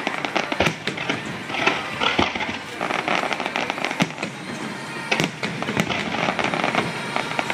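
Aerial fireworks shells bursting in a dense barrage: irregular sharp bangs, several loud ones a second apart, over continuous crackling from the exploding stars.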